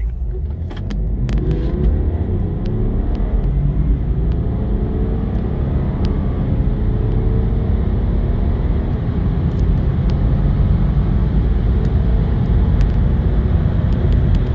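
Car engine under hard acceleration from a standstill, heard from inside the cabin: a deep rumble with the engine pitch climbing, and a few clicks near the start.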